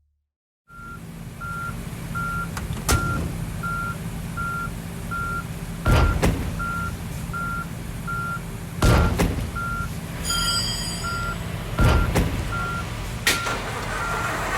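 A vehicle's backup alarm beeping at a little over two beeps a second over a diesel engine running, with loud thumps about every three seconds.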